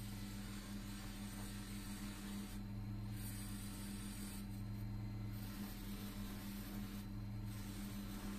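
Mini lathe motor running with a steady hum while an amber bead is held against its spinning felt polishing wheel, loaded with compound. The bead rubs on the felt with a soft hiss that drops out briefly three times.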